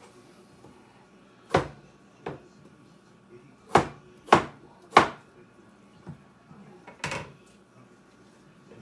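Knife chopping potatoes on a wooden cutting board: about seven sharp, irregular knocks, the three loudest in quick succession about half a second apart in the middle.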